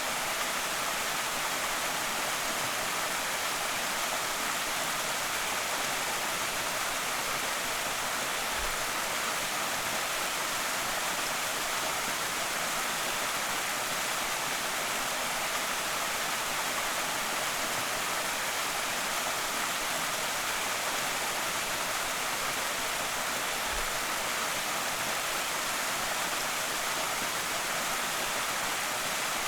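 Small creek waterfall: water falling and splashing in a steady, even rush.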